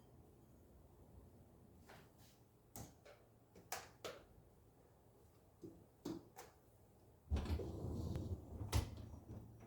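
Light clicks and knocks of things being handled, scattered a second or so apart, then a louder stretch of rustling and handling noise with one sharp knock near the end.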